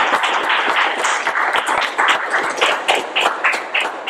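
Audience applauding, the dense clapping thinning out to a few separate claps near the end.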